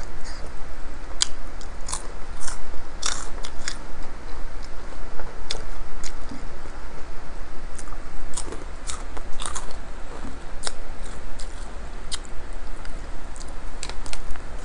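Close-miked chewing of a mouthful of pizza, with irregular crisp crunches and wet mouth clicks.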